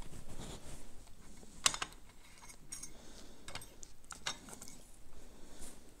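A few faint, separate light metallic clicks as the metal parts of a Pharos hand coffee grinder are handled during assembly, the sharpest about a second and a half in.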